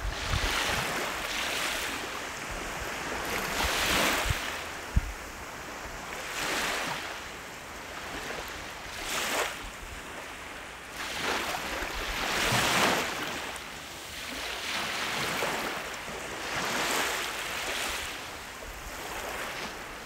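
Small waves washing up a sandy shore, the hiss of each wave swelling and fading every two to three seconds. A single sharp click about five seconds in.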